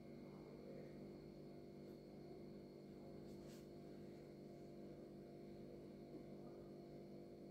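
Near silence: a faint steady low hum, with one faint brief tick about three and a half seconds in.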